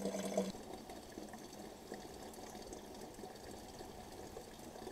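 Water running from a tap into a plastic watering can as it fills: a faint, steady rush.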